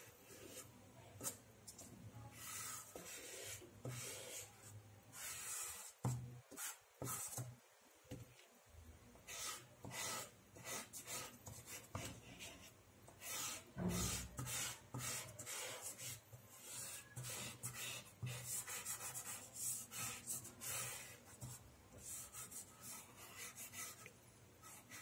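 Soft chalk pastel stick rubbed back and forth on drawing paper in many short, repeated strokes, a faint scraping. A dull knock comes about halfway through.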